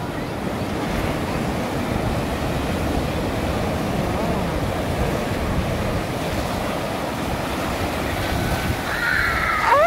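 Ocean waves washing against a rocky shore at high tide, a steady rushing surf with wind on the microphone. A brief high call cuts in at the very end.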